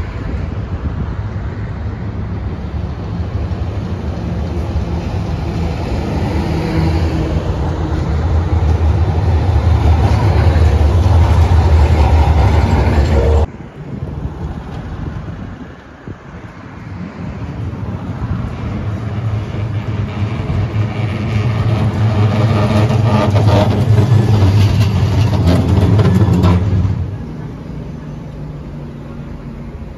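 Trams and road traffic passing on a city street. A deep rumble builds for about twelve seconds and breaks off suddenly. A second pass builds again and drops away a few seconds before the end, leaving quieter street noise.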